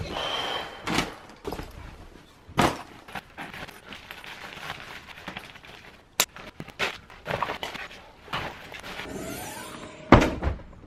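Scattered knocks, clicks and rustling of clothes and gear being handled and packed into a backpack.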